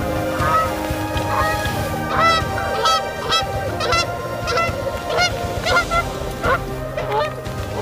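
Canada geese honking over and over, roughly one to two honks a second, some overlapping.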